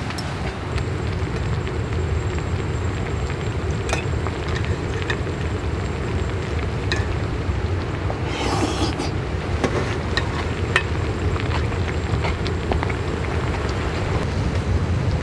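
Steady low rumble of a hotpot simmering, with scattered light clicks of chopsticks and tableware and a brief rustle about eight and a half seconds in.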